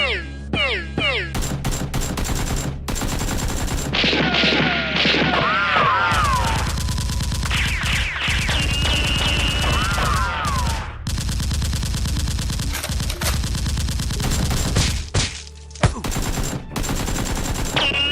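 Sustained rapid gunfire, shots in dense volleys like a machine-gun fusillade, over a steady low drone. Twice, rising-and-falling whistling tones sweep through the volleys.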